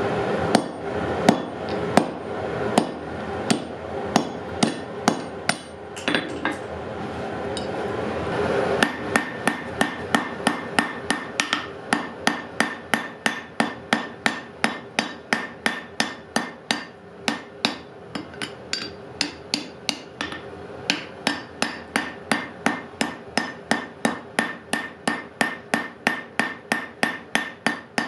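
Hand hammer striking a hot wrought iron bar on an anvil. Spaced blows over a steady rushing noise at first, then from about nine seconds in a fast, even rhythm of about three blows a second, each ringing off the anvil.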